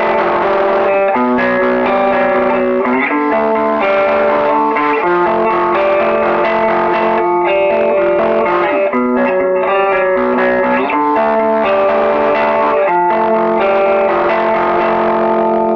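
Electric guitar fitted with covered, vintage-style Zombiedust pickups, played through an amplifier: sustained chords that change every second or two.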